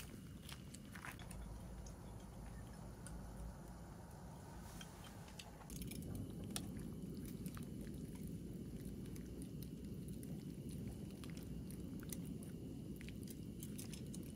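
Clams cooking: a steady low rumble with scattered small crackles and clicks, louder from about six seconds in.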